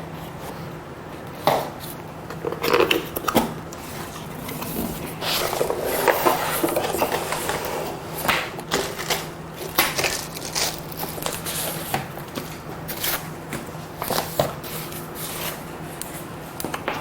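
Keyboard box being unpacked by hand: cardboard and packaging scraping and rustling, with irregular light knocks and clicks as the contents are taken out.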